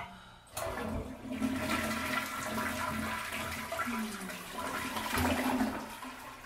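A click, then a toilet flushing: water rushing loudly for about five seconds and tailing off near the end.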